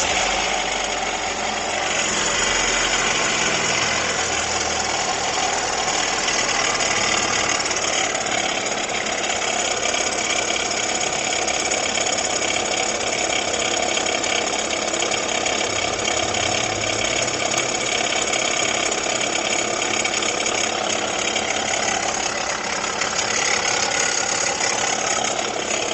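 Jeep Renegade engine idling with a steady, fast clattering noise from the front of the engine, the abnormal noise the owner reported as worse at idle. The noise stops once the accessory belt is removed, pointing to the belt-driven accessory drive.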